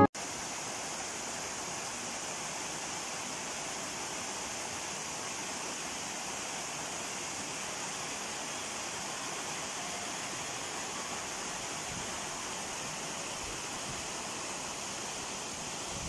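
Small waterfall cascading between boulders into a rock pool: a steady, even rush of running water.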